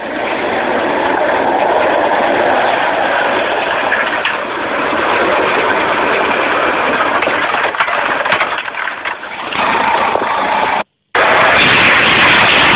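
A golf cart driving across the course and jumping from a sand bunker, its engine running under a dense rush of noise, heard as thin, muffled clip playback. Near the end the sound cuts out briefly and a louder, different sound takes over.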